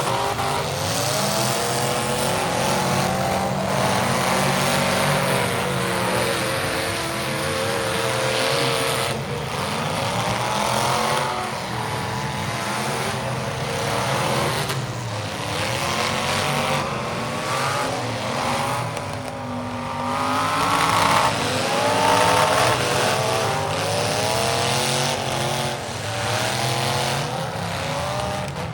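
Demolition derby cars' engines revving, several at once, their pitch rising and falling again and again as they run hard.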